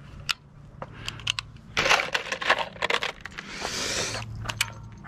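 Loose brass cartridges clinking and rattling as a hand rummages through them in a plastic ammo box. There is a string of small metallic clicks, with two longer spells of rattling about two and four seconds in.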